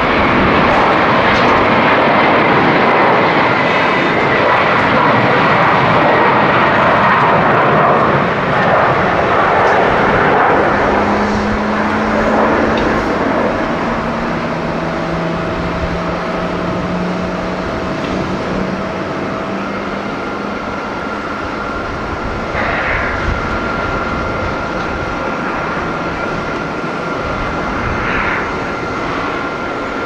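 Twin jet engines of a Boeing 777 airliner at takeoff thrust: a loud, steady roar through the takeoff roll and liftoff that slowly fades as the jet climbs away, with a few whining tones coming and going in it.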